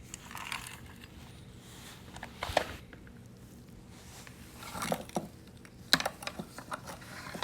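Scattered light clicks and clatter of small tools and parts being handled while rummaging through a box, in a few short bursts.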